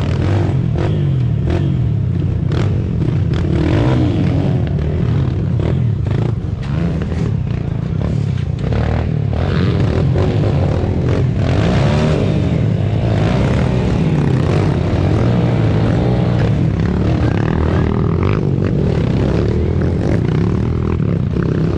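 Off-road motorcycle engine running and revving up and down as the bike is ridden, with frequent clattering and scraping knocks throughout.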